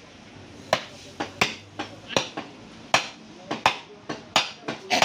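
Butchers' blades chopping on wooden blocks: about ten sharp, irregularly spaced chopping knocks.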